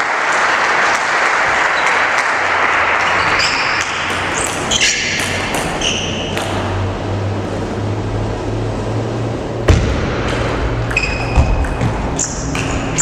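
Spectators applauding in a large hall for the first few seconds. Then a table tennis rally: sharp clicks of the ball off bats and table, the loudest about ten seconds in, with short high squeaks of sports shoes on the court floor.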